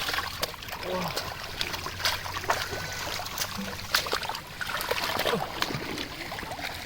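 Shallow pond water splashing and trickling: irregular splashes and drips as people wade and work the water by hand.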